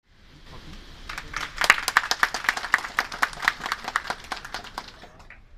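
Audience applauding. Scattered claps start about a second in and build to steady clapping with a few louder claps standing out, then die away near the end.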